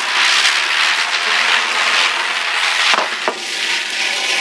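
Ground spinner firecracker (chakri) whirling on the floor, giving a loud, steady hiss as it sprays sparks. Two sharp pops come about three seconds in.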